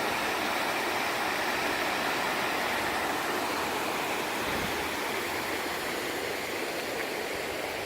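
Eagle River Falls rushing: a steady, even noise of falling water.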